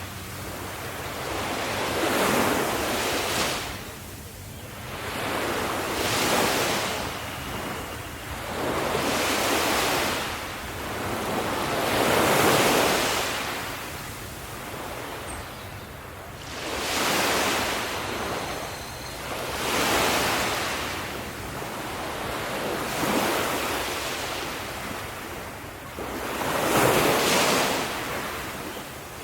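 Ocean waves breaking on a shore, each wave a surge of surf that swells and fades every two to three seconds, with some wind on the microphone.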